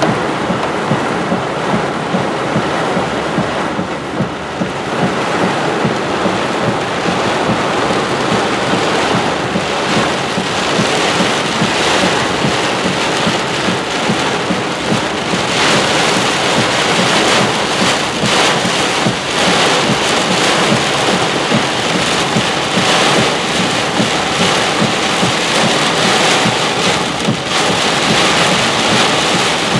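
Heavy rain pelting a vehicle's windshield and roof, heard from inside the cab, growing heavier about halfway through.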